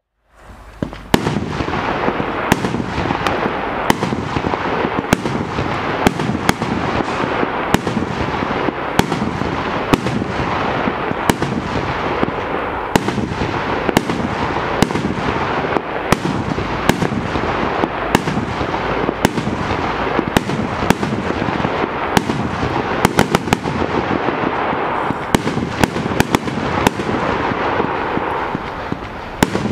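A 100-shot professional fireworks cake firing. Sharp reports come roughly once a second over a dense, continuous crackle, starting about a second in, and the shots come in quicker clusters near the end.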